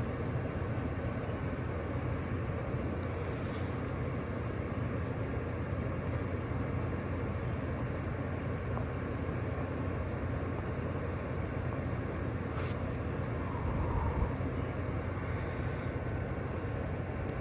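Steady outdoor background rumble and hiss, like distant traffic, with a faint high chirp a few seconds in and a single click later on.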